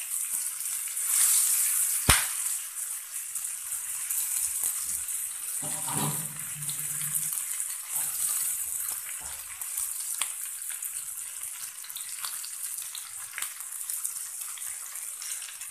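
Pre-boiled chicken leg shallow-frying in a little oil on a dosa tawa: steady high sizzling with scattered pops and crackles of the oil, one sharp pop about two seconds in.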